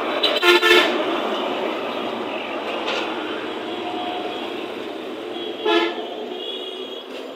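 Road traffic running steadily, with a vehicle horn tooting briefly near the start and again about six seconds in.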